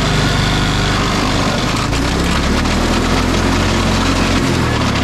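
Cub Cadet XT1 riding lawn mower's engine running steadily at speed, heard close from the seat as it is driven across the lawn.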